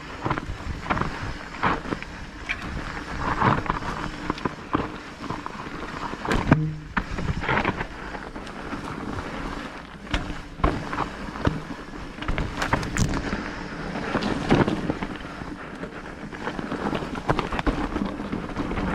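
Electric mountain bike ridden over a rough trail: a steady rush of tyre noise with frequent irregular knocks and rattles as the bike goes over rocks and roots.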